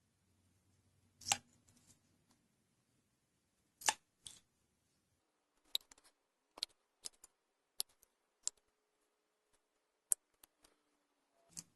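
About a dozen short, sharp snips or clicks at irregular intervals. The two loudest come in the first four seconds.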